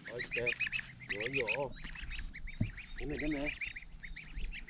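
Domestic goslings peeping: a continuous run of short, high-pitched peeps, several a second, from a small group of young geese.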